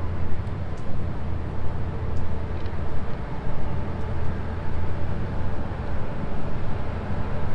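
Steady low rumble of outdoor city ambience with a wavering level, and a few faint high ticks about half a second to three seconds in.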